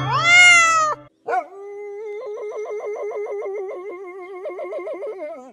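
A short pitched swoop rises and falls in the first second. Then a dog howls in one long, quickly wavering note that holds steady in pitch for about four seconds.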